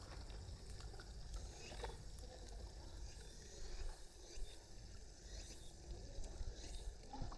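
Faint splashing and lapping of pool water as a West Highland White Terrier paddles, with scattered small splashes over a low steady rumble.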